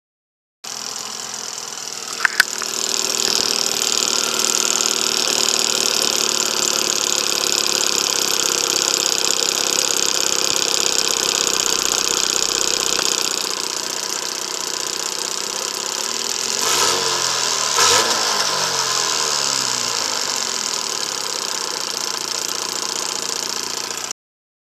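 Johnson 15 hp two-stroke outboard motor running steadily. There are two sharp clicks about two seconds in, and the engine note shifts briefly about seventeen seconds in.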